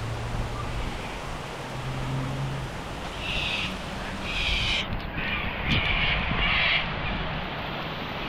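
A bird gives a run of four or five short, harsh cawing calls starting about three seconds in, over a steady hiss of rain.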